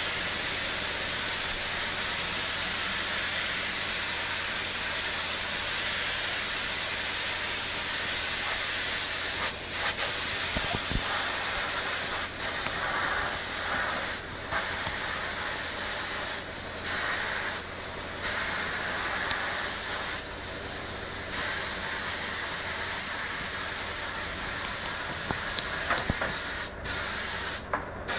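Paint spray gun hissing steadily as it sprays paint, with a number of short breaks in the hiss in the second half. A low steady hum runs underneath.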